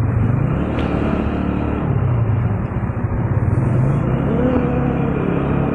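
Motorcycle engine running steadily at cruising speed, heard from the rider's seat with road and wind noise. A faint wavering tone joins it about four seconds in.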